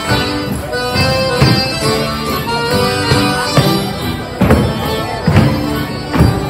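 Live gaúcho folk dance music led by an accordion, its held chords over a low beat that comes about once a second.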